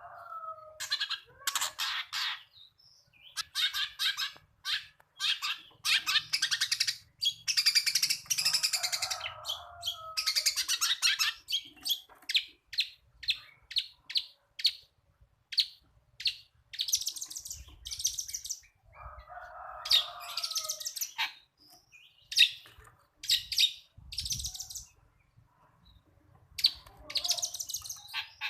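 Long-tailed shrike (cendet) singing a varied mimicry song of chirps and fast rattling trills, with a lower buzzy phrase about two-thirds of the way through, broken by short pauses.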